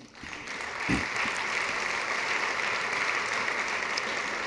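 Audience applauding, the clapping swelling in over the first second and then holding steady. A low thump sounds about a second in.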